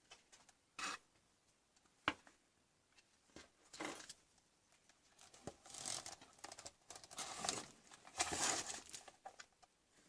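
Handling noises: a few short rustling, scraping bursts and a sharp click about two seconds in, with longer scraping and rustling toward the end.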